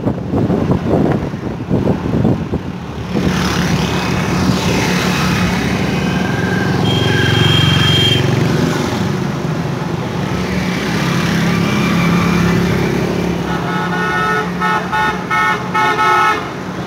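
Wind buffeting the microphone at first, then the steady running of a vehicle engine and road traffic while driving. A horn sounds about halfway through, and a run of repeated horn toots comes near the end.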